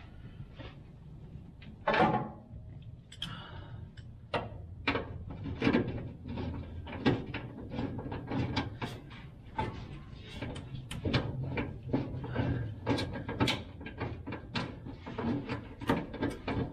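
Hand ratchet on a long extension clicking in short, irregular strokes as a fuel-tank strap bolt is run in, with a single louder metal knock about two seconds in. A steady low hum runs underneath.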